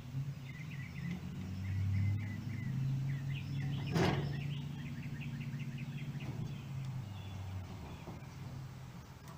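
Small birds chirping over a low steady hum that swells in the middle and fades near the end. One sharp metallic click about four seconds in comes from the stove's pump assembly being handled.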